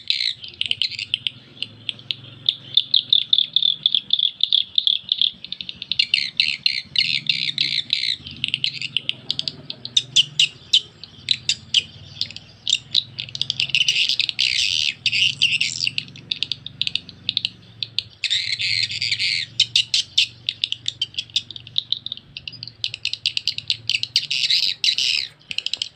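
Recorded swiftlet lure call played through the square tweeters of a Piro MW-88 swiftlet-house amplifier: dense trains of rapid, high twittering chirps in bursts with short pauses. The call is unhurried and very clear.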